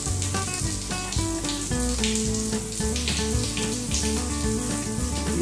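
Shower spraying steadily onto a sitting dog and the bathroom floor, an even hiss of falling water, with background music playing over it.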